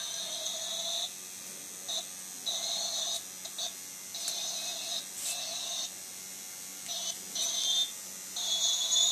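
Small DC motor of a homemade toy helicopter whining in short bursts, switching on and off about nine times at irregular intervals over a faint steady hum.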